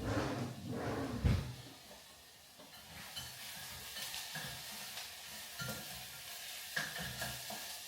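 Onions sizzling in oil in a hot pan as they are stirred, with a few knocks of the utensil against the pan in the first second and a half, then a steady sizzle. The onions are starting to burn: the heat is too high.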